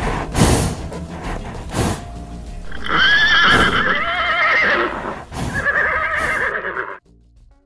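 Horses neighing: two long, wavering whinnies, the first from about three seconds in and the second near the end, cutting off suddenly just before the end.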